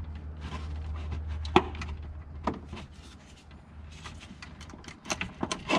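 Sharp knocks and light scraping as a BMW E92 335i's factory front-mount intercooler is worked loose and slid out from under the car: single knocks about a second and a half in and again a second later, then a quick run of knocks near the end.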